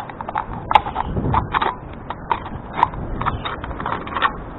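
Scissors cutting through a thin aluminum drink can: an irregular run of short, sharp metallic snips and crinkles, two or three a second.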